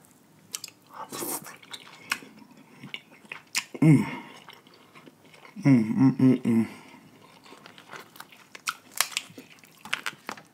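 Close-miked, wet chewing and lip-smacking of snow crab meat, with many sharp clicks and cracks of the crab legs' shell being pulled apart. About 4 s in and again around 6 s come short hummed 'mmm' sounds.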